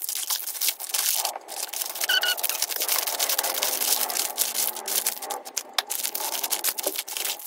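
Plastic wrappers of individually packed mochi crinkling and rustling as they are picked up, shuffled and laid out by hand to be counted, a dense run of crackles throughout.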